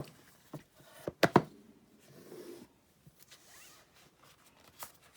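Cardboard packaging and paper inserts being handled: a few light taps and knocks, with a sharper pair of knocks about a second and a half in and faint rustling between.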